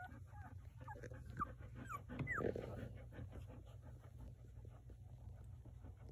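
Newborn golden retriever puppies giving short, high squeaks and whimpers for about the first two seconds, then the golden retriever mother panting in quick, even breaths.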